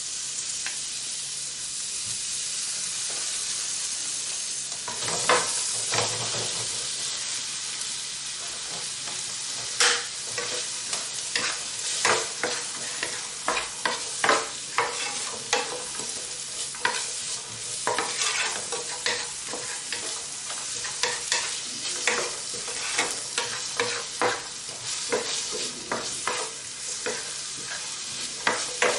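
Onions sizzling in olive oil in a pan as they sweat, with a spoon stirring and knocking against the pan, the knocks coming often from about a third of the way in.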